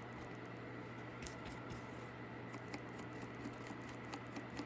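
Paintbrush dry-brushing over a cardboard surface: faint scratching with many small irregular ticks of the bristles, over a steady low hum.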